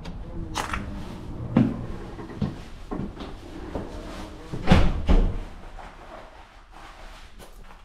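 A front door being worked at its knob and lock, then opened and shut: a series of clunks and rattles, with the two heaviest thuds close together about five seconds in.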